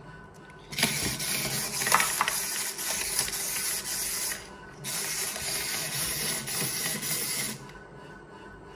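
Mechanism of a toy crawling baby doll whirring and clicking as it crawls. It runs in two stretches, about three and a half and two and a half seconds long, with a short break between them.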